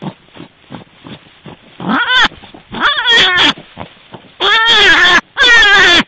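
Four loud, drawn-out animal calls from about two seconds in, each arching up and then down in pitch, after a stretch of faint soft ticks.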